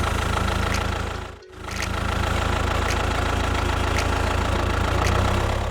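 A vehicle engine running steadily with a low rumble, cutting out briefly about a second and a half in, then carrying on.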